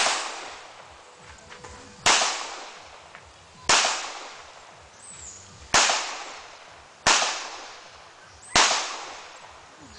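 Pistol shots fired one at a time, six in all at a slow, uneven pace about one and a half to two seconds apart, the first right at the start. Each is a sharp crack with a short echoing tail.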